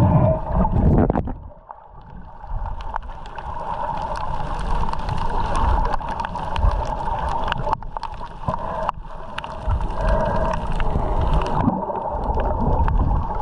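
Underwater water noise picked up by a GoPro camera below the surface by a rocky reef: a muffled low rumble of water surging over the rocks, with scattered clicks and a steady hum. It is louder and more churning for the first second or so, then evens out.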